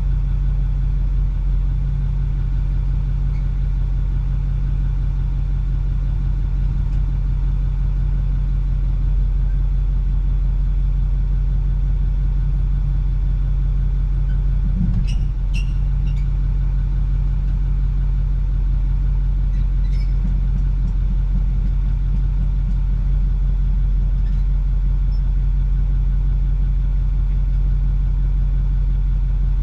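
2008 Ford F-350's 6.4-litre Power Stroke V8 diesel idling steadily, heard from inside the cab, with a few faint clicks around the middle.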